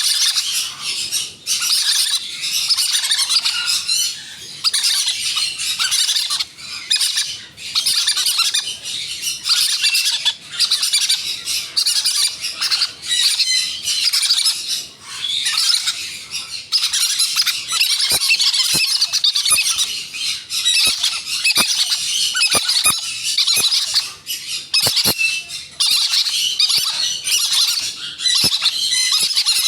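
Green-cheeked conures squawking rapidly and raspily while being hand-fed, a dense run of harsh calls with only brief gaps, and some soft clicks in the second half.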